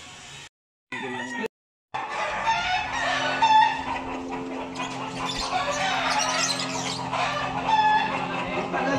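Gamefowl chickens calling over one another, with roosters crowing and hens clucking. A steady low hum runs underneath. The sound drops out twice briefly near the start.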